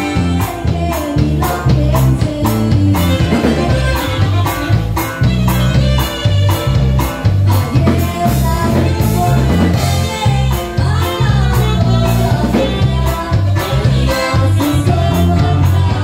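Live norteño band with saxophone playing over a steady drum beat and a strong bass line.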